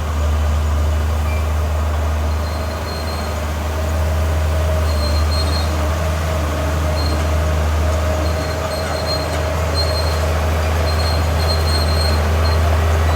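Diesel engine of heavy earthmoving machinery running steadily, a deep continuous drone, with faint short high squeaks coming and going.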